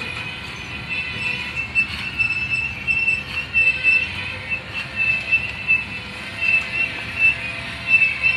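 Loaded covered hopper cars of a freight grain train rolling past, with a high-pitched squeal from the steel wheels that comes and goes in short pulses over a steady rumble.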